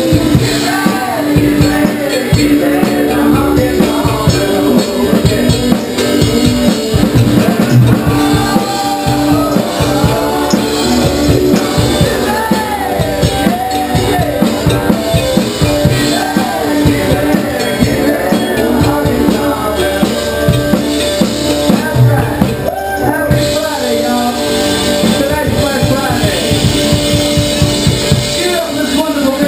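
Live band playing loud: a man singing over drum kit, guitar and keyboard.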